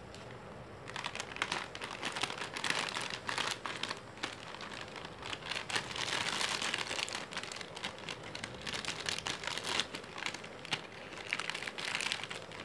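Foil snack packet crinkling and rustling as it is handled and cut open with scissors, a dense run of crackles that starts about a second in.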